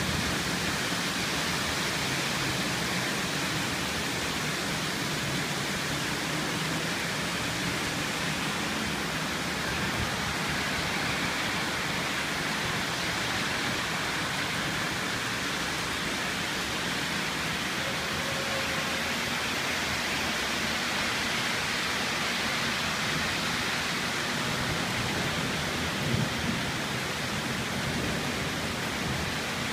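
Heavy rain pouring steadily, an even dense hiss, with one brief sharp knock near the end.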